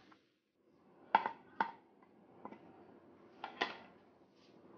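About six light, sharp knocks and clinks of kitchenware, the loudest about a second in and again near three and a half seconds, over a faint hiss.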